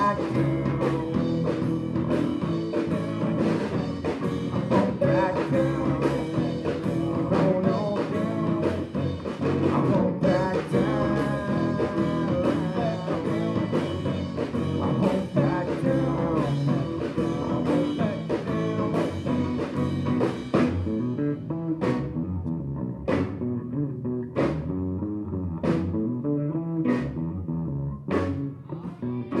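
Live rock band playing an instrumental passage with guitars, bass and drums. About two-thirds of the way through, the music thins out to a sparser groove with a sharp drum or cymbal hit roughly once a second.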